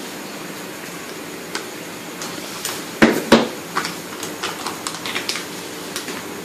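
Crinkling and scattered sharp clicks of a plastic pouch of cooking oil being handled to open it, with two louder snaps about three seconds in, over a steady background hum.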